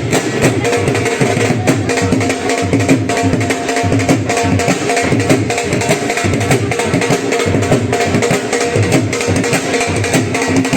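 Music with a steady percussion beat and no singing.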